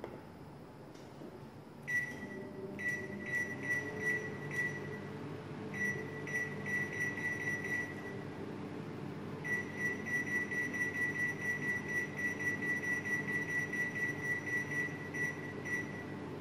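Samsung MS23K3513AW microwave's control panel beeping as its buttons are pressed: a few short high beeps, a pause, a few more, then a fast string of beeps, about four a second, for several seconds.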